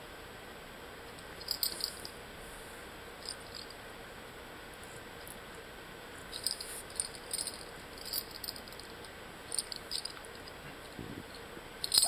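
Light rattling and clicking in short, irregular bursts, like small hard objects being shaken or knocked about, with a few quiet stretches in between.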